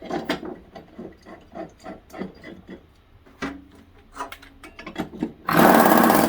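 Metal parts clinking and knocking as a mower blade and blade stiffener are fitted onto the spindle, then, about five and a half seconds in, a power tool, likely an impact wrench, starts loud rapid hammering, running in bursts as it drives the blade bolt tight.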